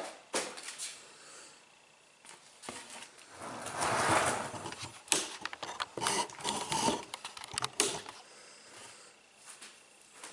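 Irregular clicks, knocks and scraping of metal and plastic washing-machine parts being handled and worked loose during disassembly, with a few sharp clicks and longer rattling stretches in the middle.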